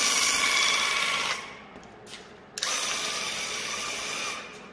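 Graco handheld airless paint sprayer's pump buzzing steadily while the trigger is held, spraying paint onto a door rail. The buzz runs in two passes: it cuts off a little over a second in, and after a short pause starts again for nearly two seconds before stopping.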